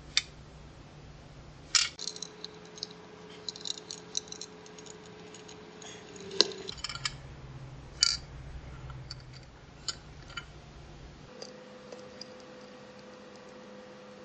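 Small metal chain links clinking and pliers clicking against metal while the chain is hooked onto the feeder's roof: a few sharp clicks and some light rattling, over a faint steady hum.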